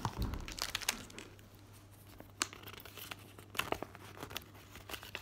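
Parcel packaging being handled and unwrapped: plastic wrapping and paper crinkling and rustling in short, scattered crackles.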